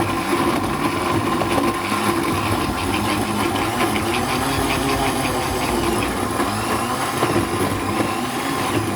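Electric kitchen blender running steadily, chopping fresh tomatoes, peppers and onions into a coarse blend.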